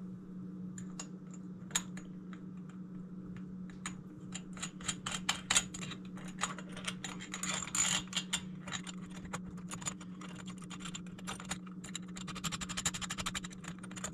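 Runs of quick, irregular plastic ratcheting clicks, cable ties being pulled tight by hand, over a steady low hum.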